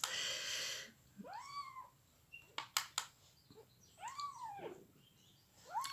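A two-week-old Maine Coon kitten mewing twice, each a short cry that rises and then falls, about a second in and about four seconds in. A few sharp clicks sound between the two cries.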